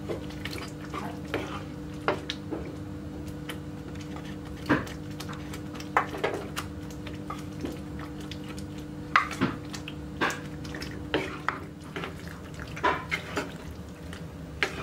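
Cooked penne pasta being tipped from a bowl into a nonstick frying pan of tomato sauce. Scattered clinks and clatters of bowl and utensil against the pan run through it, with stirring near the end, over a steady low hum.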